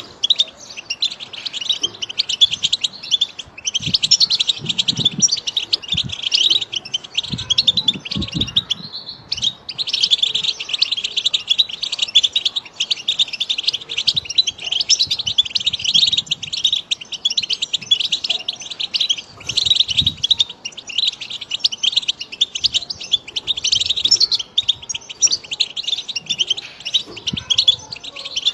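European goldfinch song: fast, continuous twittering of trills and chirps, with a short break about nine seconds in.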